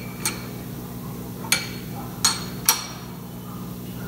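Steel wrench clinking against the die holder bolts of a Scotchman ironworker as they are tightened: four sharp metallic clinks at uneven intervals, over a steady low hum.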